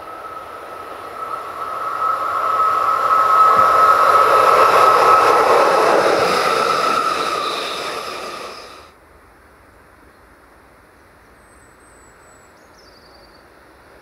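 Class 482 electric locomotive running past close by: its rumble builds to a peak over the first few seconds, with a steady high tone held above it. The sound cuts off abruptly about nine seconds in, leaving only a faint, even background.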